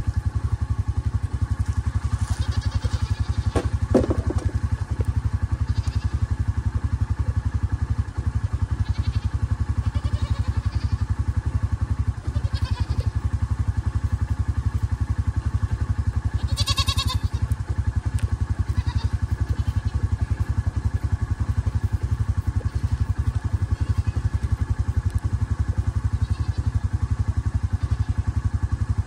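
A steady engine drone running evenly at constant speed, low and dense, with faint steady tones above it.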